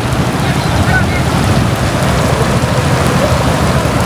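Heavy rain pouring steadily, with a dense low rumble underneath.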